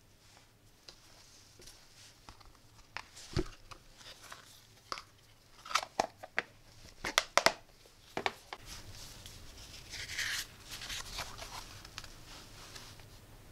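Handling noise: hard plastic kit cases clicking and knocking as they are picked up and held together, with a cluster of sharp clicks about six to eight seconds in, then a soft paper rustle as the instruction booklet is opened.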